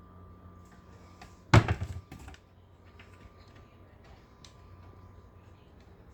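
A single loud thump about a second and a half in, followed by a brief rattle of fainter knocks, over a faint steady hum.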